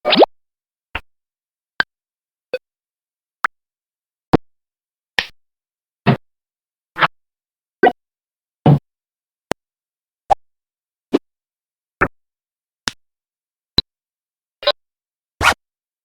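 A string of very short made-up sound effects, brief pops and plops played one after another a little under a second apart, with dead silence between them.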